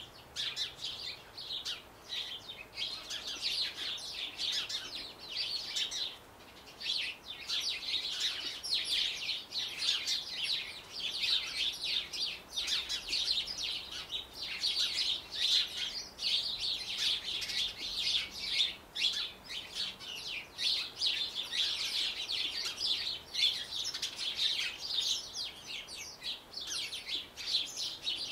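Small songbirds chirping and twittering almost without pause, a dense run of short high-pitched notes with one brief lull about six seconds in.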